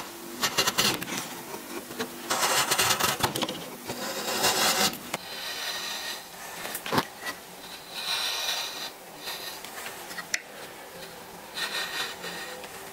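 A steel bench chisel pared by hand across the end grain of a wooden block, in a series of dry scraping strokes about a second long with short pauses between them. A single sharp tap comes about seven seconds in.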